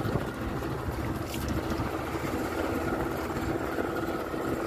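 Motorboat engine running steadily at an even pitch, with wind noise on the microphone.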